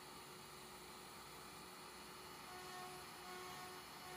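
Faint, steady hum and hiss of a LowRider 3 CNC router cutting plexiglass with a 1/8-inch single-flute (O-flute) bit at feeds and speeds that throw small, unmelted chips. Faint higher tones come and go in the second half.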